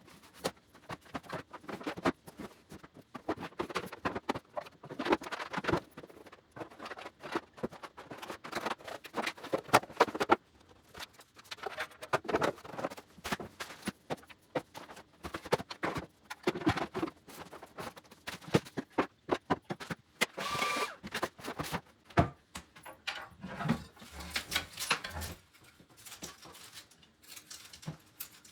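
Irregular knocks, clicks and rustling of household objects being handled and set into a cabinet, with a brief squeak about two-thirds of the way through.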